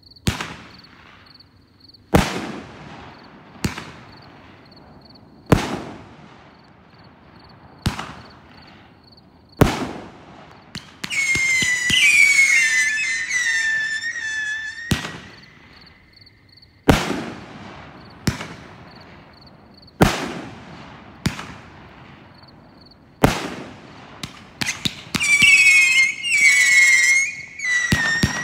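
Pyro Demon 'Moo Goo Gai Pan' consumer fireworks cake firing shot after shot, a sharp bang every two seconds or so. About eleven seconds in, and again near the end, a shrill wavering whistle rings out for a few seconds over the bangs.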